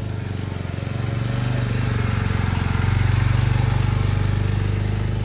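A cruiser-style motorcycle's engine running as the bike rides past, a steady low exhaust note with even firing pulses. It grows louder to a peak about three seconds in, then begins to fade.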